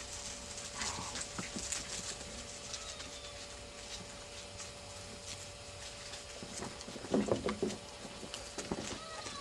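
Afghan hound puppies rustling and scrabbling through dry leaves and flower-bed plants, a run of small clicks and crackles, with a brief louder puppy whine about seven seconds in.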